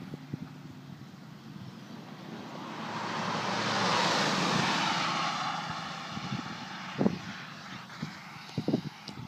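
2002 Ford Mustang driving past at about 65 mph: engine and tyre noise swell over a few seconds, peak about four seconds in, then fade away with a drop in pitch. A short sharp knock comes about seven seconds in.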